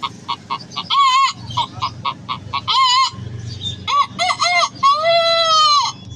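A man imitating a chicken with his voice: rapid clucking broken by two wavering squawks, then a long rooster-like crow of about a second near the end.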